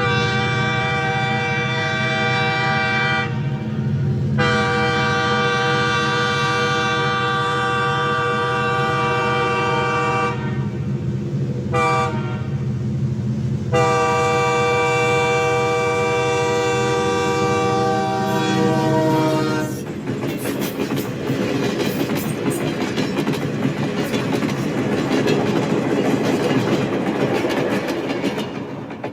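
Locomotive horn sounding four blasts, long, long, short, long: the grade-crossing signal of an approaching train, over the rumble of the engine. The last long blast drops in pitch at its end as the train passes. It gives way to the steady clatter and clicking of the cars' wheels rolling over the rail joints.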